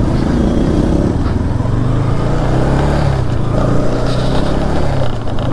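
Bajaj Pulsar NS200 single-cylinder engine running as the bike rolls along a dirt lane at low speed, its pitch lifting slightly in the middle and easing off near the end.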